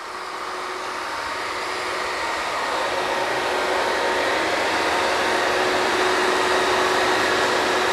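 Steady mechanical noise of a working drilling rig's machinery: a constant rushing hum with a couple of steady tones in it, growing steadily louder.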